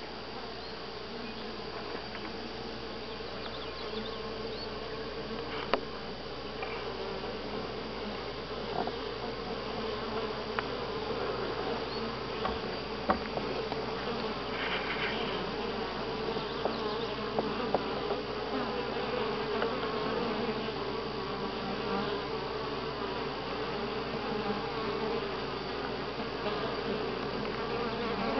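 Honey bees buzzing around their hive in a steady, continuous hum, with a few short, sharp ticks scattered through it.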